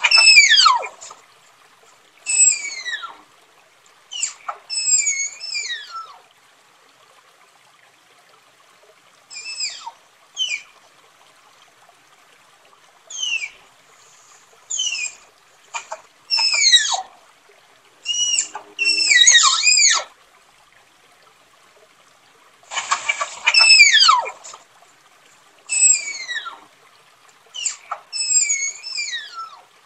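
Tapir calling: a series of high-pitched whistling squeals, each gliding steeply downward in pitch. They come singly or in quick clusters, a second or few apart, with the loudest right at the start and about two-thirds of the way through.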